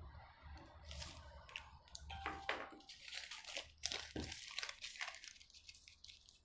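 Thin paper pattern pieces rustling and crinkling as they are handled and smoothed flat on a cutting mat, with light scratches and ticks. It is faint, and busiest about halfway through.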